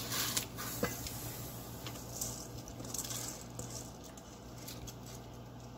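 Wet, soaked basmati rice sliding out of a steel bowl and splashing into a pot of boiling water. The splashing is strongest in the first half-second, then turns to softer scattered splashes as the last grains are pushed in.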